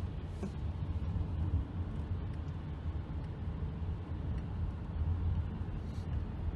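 Steady low rumble of a car's engine and tyres on wet pavement, heard inside the cabin while driving.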